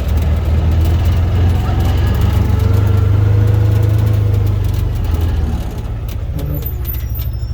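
Engine of a small vehicle running steadily with a low rumble, easing off and getting quieter about two-thirds of the way in.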